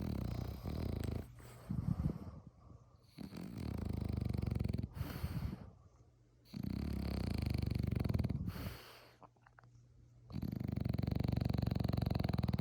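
Snoring: long, rattling snores of about two seconds each, coming every three to four seconds, with a short one about two seconds in.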